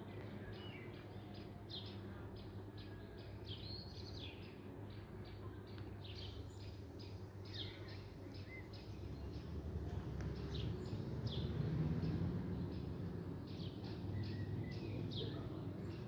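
Small songbirds chirping repeatedly with short, quick notes over a low, steady background rumble that swells for a few seconds about ten seconds in.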